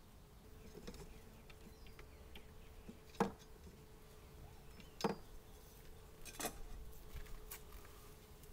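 Honey bees humming steadily at an open hive, with sharp knocks of wooden hive frames being set into the box, the loudest about three and five seconds in, and a short run of clicks a little after six seconds.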